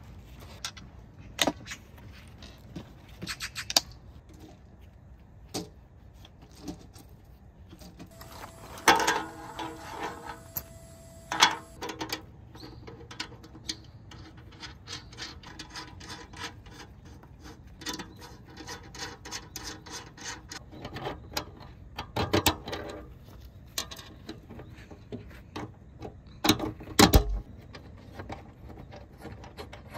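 Camping gear being handled and set up: scattered clicks, knocks and clatter, loudest about nine and eleven seconds in and again in two sharp bursts near the end.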